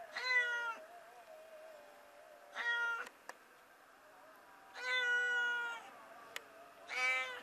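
Calico kitten trapped at the bottom of a well, meowing four times; the third meow is the longest.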